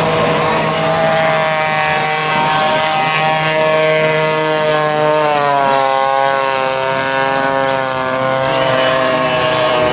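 Several vintage racing kart engines running at high revs on track, their pitches overlapping; the engine note drops about halfway through as they come off the throttle, then holds steady.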